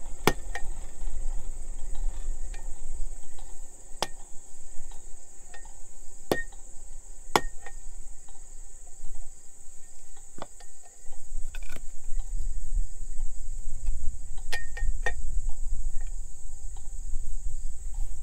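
A wooden mallet knocking a hot twisted steel bar against the anvil as it is bent into a handle: about ten sharp blows spaced irregularly, each with a slight metallic ring. Under them run a steady high trill of crickets and a low rumble.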